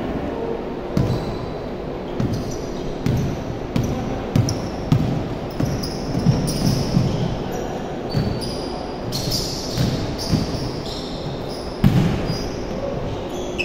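A basketball bouncing on a hardwood gym court as it is dribbled, with irregular sharp thumps, over the echoing hubbub of players running, and short high squeaks scattered through.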